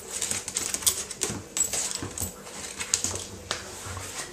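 A West Highland White Terrier pouncing at a grape on a tiled floor: its claws clicking and scrabbling on the tiles in quick, irregular taps.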